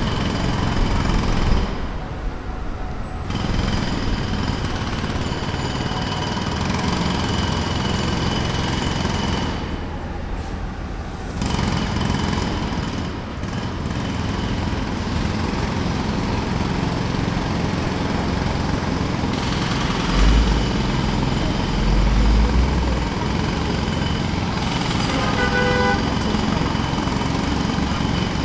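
Pneumatic jackhammer breaking pavement in rapid continuous hammering, stopping briefly about two seconds in and again about ten seconds in, over traffic noise.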